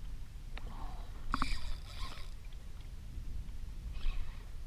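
Low wind rumble on the microphone and water lapping against a plastic kayak hull, with a short hissing rush about a second and a half in and a few brief squeaks near the start.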